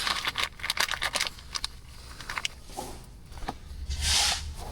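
Handling noises under the car: a quick run of light metal clicks and rattles, then sparse ticks and a short breathy hiss about four seconds in.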